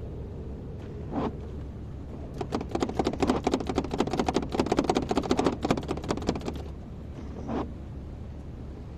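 Excavator running with a steady low engine hum. From about two to seven seconds in there is a fast clattering rattle of many rapid clicks. A short rising call sounds about a second in and again near the end.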